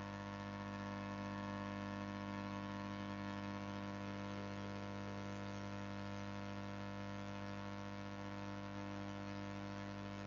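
Steady electrical hum and buzz with a layer of hiss, unchanging throughout.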